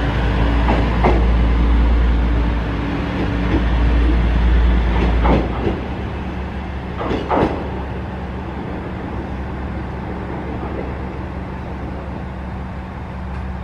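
KiHa 120 diesel railcar pulling away, its engine's heavy low rumble dropping off about five and a half seconds in. A few brief sharp squeals come between about five and seven and a half seconds, then a steadier, quieter hum as the railcar moves off.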